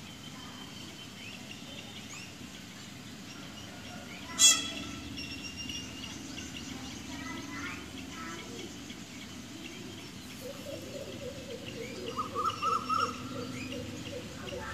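Shallots frying quietly in a clay pot as they are stirred with a wooden spatula. Several short, high-pitched chirps sound over it, the loudest about four and a half seconds in.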